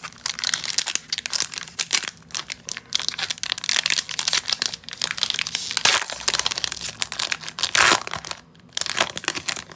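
Foil trading-card booster-pack wrapper being torn open and crinkled by hand: a dense run of irregular crackles and rustles, loudest just before eight seconds in, with a short lull soon after.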